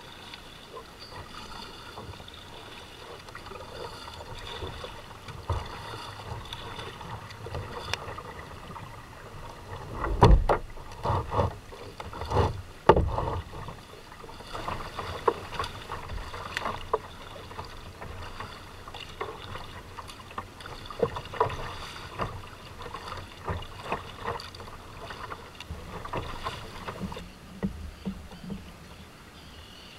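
Kayak being paddled with a double-bladed paddle: irregular stroke splashes and water movement at the hull, with knocks and thumps throughout and a cluster of heavier thumps about ten to thirteen seconds in.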